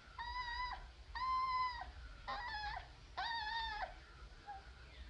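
Newborn puppy whining: four high-pitched, drawn-out whines, each about half a second long and about a second apart, the third one wavering.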